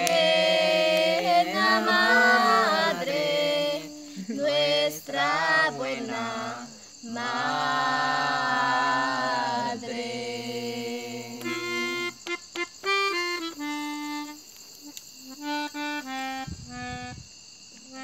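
Voices singing a slow hymn with vibrato for about the first ten seconds, then an instrument playing a slow line of single held notes that step from pitch to pitch.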